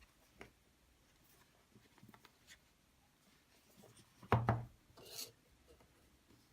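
Phone box and packaging being handled: soft rubbing and small clicks, one louder knock about four seconds in, then a brief rustle.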